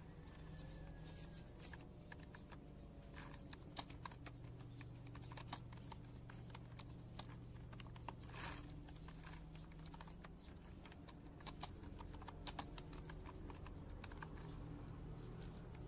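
Typing on a computer keyboard: quick, irregular keystroke clicks, faint, over a low steady hum.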